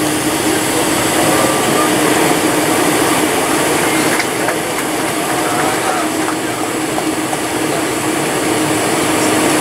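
Cabin noise of a Boeing 747-400 taxiing: the jet engines running at low taxi power, a steady rushing hum with one constant droning tone.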